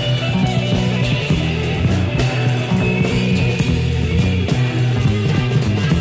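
Early-1970s psychedelic progressive rock playing an instrumental passage without singing: electric guitar over a busy bass line and drums.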